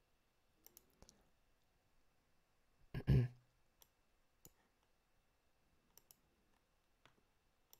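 Scattered clicks of a computer mouse, a handful spread over several seconds, with one short vocal sound from the user about three seconds in.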